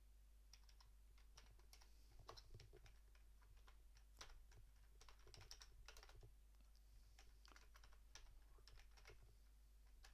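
Faint typing on a computer keyboard: irregular runs of key clicks with short pauses between them, over a steady low electrical hum.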